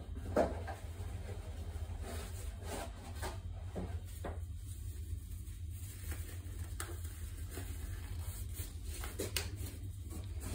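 Scattered rustling and light clicks of handling, as disposable nitrile gloves are pulled on, over a steady low hum.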